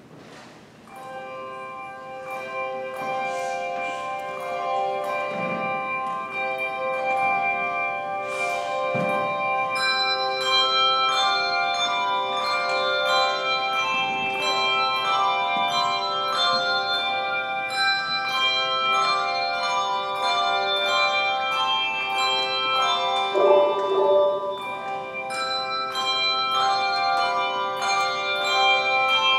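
Handbell choir playing a piece: many handbells struck in turn at different pitches, their tones ringing on and overlapping. It starts quietly about a second in and builds to a fuller sound over the first ten seconds.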